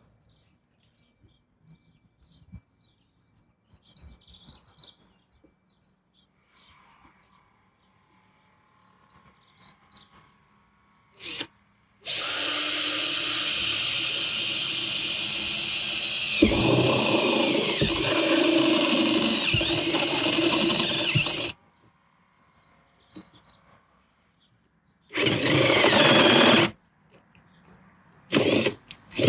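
Cordless drill with a stepped bit boring a 14 mm hole through a van's steel roof: a brief blip of the motor, then a run of about nine seconds whose high whine dips in pitch several times as the bit cuts the metal, then two shorter bursts near the end. Birds chirp faintly in the quiet stretch before the drilling.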